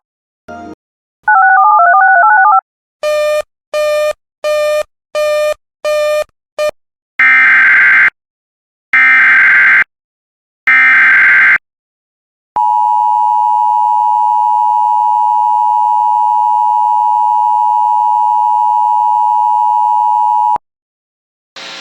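Emergency Alert System tones: a string of short warbling digital data bursts, then three SAME header bursts of about a second each, followed by the EAS two-tone attention signal (853 and 960 Hz) held steady for about eight seconds. These tones mark the start of a new alert.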